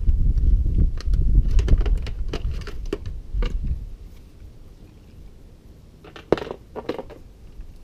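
Tools and small metal hardware being handled and set down: a busy run of clinks, knocks and rumbling handling noise for the first few seconds, then quieter, with two sharp knocks about six seconds in.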